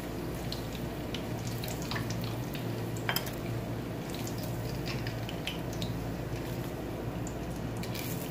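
Hot cooking oil crackling with many scattered sharp pops as boiled eggs fry in it, over a steady low hum.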